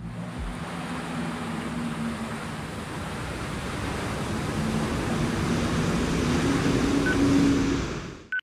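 A rushing noise sound effect with a faint low wavering hum beneath it, swelling slowly, then dropping away and cutting off abruptly near the end.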